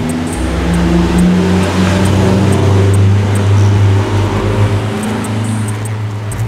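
Background music: held low bass notes that change pitch in steps, over a steady ticking beat.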